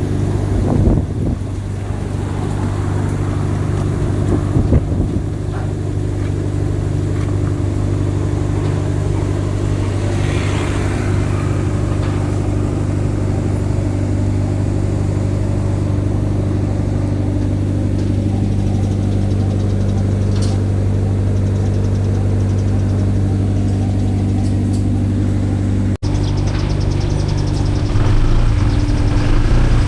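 A motor vehicle's engine runs at a steady pitch, giving a constant low drone. Near the end the sound breaks off abruptly and carries on slightly changed.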